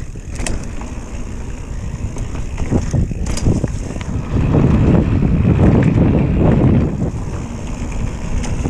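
Mountain bike riding fast along a dirt trail: wind buffeting the microphone over the rumble of tyres on the ground, swelling louder about halfway through, with a few sharp clicks from the bike.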